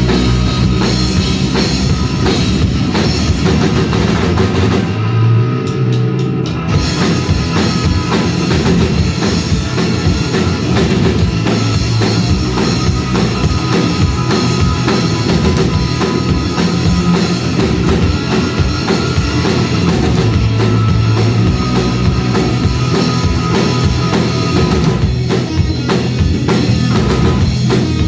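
Live rock band playing an instrumental passage: a drum kit driving a steady beat under electric guitar. The cymbals drop out for about a second around five seconds in.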